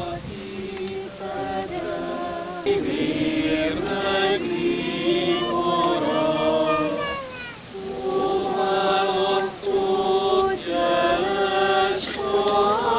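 A congregation of men and women singing a Hungarian Catholic hymn together, the recessional hymn, in slow held notes, with a short break between lines a little past halfway.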